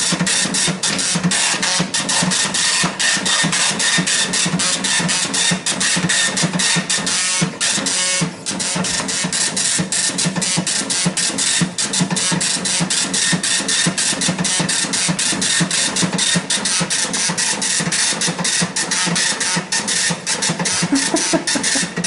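HP 2631G dot matrix printer printing a program listing at speed: a dense, continuous rattle of rapid print-head clicks, broken by one brief pause a little past eight seconds in. The machine is printing normally again.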